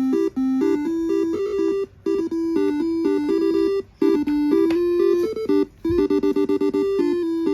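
Basuri telolet multi-tone horn playing a quick melody: rapid short toots and longer held notes moving among three pitches, in phrases broken by brief pauses.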